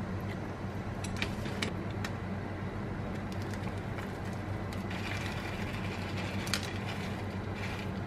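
Steady low background hum, with a few light clicks about a second in, then a soft dry rustle and patter as brown-rice crunch is sprinkled from a small packet over a salad.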